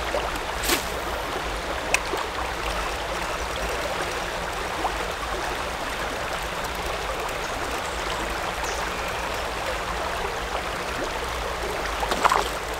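Steady rush of creek water flowing around a wader, with a few brief sharp sounds over it, the clearest about a second in and near the end.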